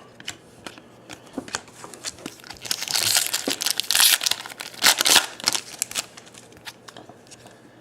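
Foil trading-card pack wrappers crinkling and crumpling in the hands. The crackling is loudest from about three to five seconds in.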